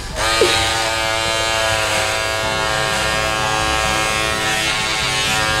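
Corded electric hair clippers running in a steady buzz while trimming the hair at the back of the neck.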